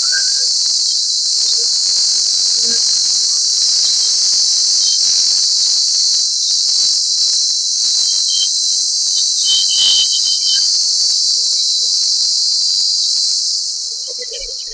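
Electric saw with a fresh blade cutting through the steel sheet of a van's side door, a loud steady high-pitched hiss and rasp that winds down near the end as the cut is finished.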